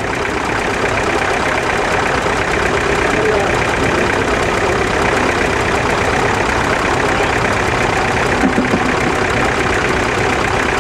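Vintage tractor engines idling steadily, the nearest a grey 1952 Ferguson T20.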